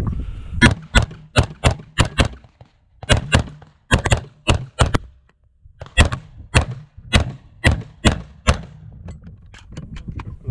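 AR-15 rifle in .223/5.56 firing rapid strings of shots, about two dozen in all, in quick runs broken by short pauses as it moves between targets. Fainter cracks follow near the end.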